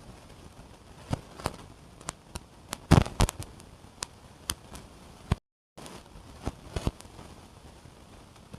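Irregular clicks and knocks of the mixer grinder's parts and packaging being handled during unboxing, with a cluster of louder knocks about three seconds in.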